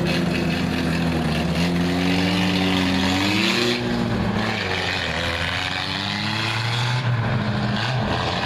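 Several race car engines running around the track, their pitch rising and falling as they accelerate and pass. Loud.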